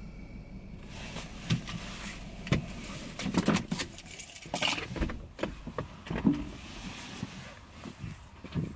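Keys jangling with a run of sharp clicks and knocks as a driver gets out of a parked car: key and seatbelt handled, then the door opened.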